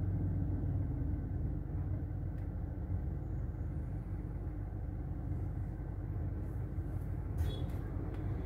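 Kia Seltos idling, heard inside the cabin as a steady low hum. A faint click comes about seven and a half seconds in.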